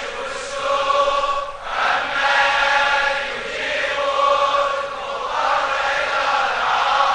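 A large congregation of men chanting together in long, drawn-out phrases of about two seconds each, in supplication.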